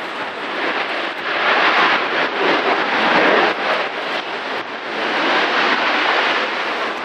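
Ryanair Boeing 737-800's CFM56 jet engines running at high power as it rolls along the runway, a dense rushing noise that swells twice. Gusty wind buffets the microphone throughout.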